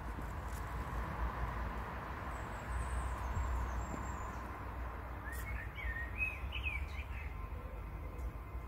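A small bird chirping a quick run of short notes about halfway through, over a steady low outdoor rumble.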